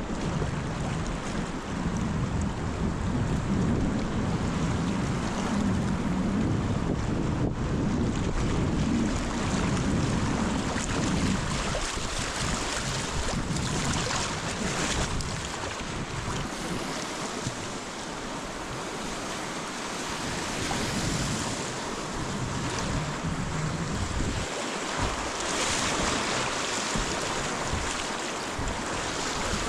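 Rushing river water around a kayak. Wind rumbles on the microphone for the first eleven seconds or so, then fades, leaving the water's hiss.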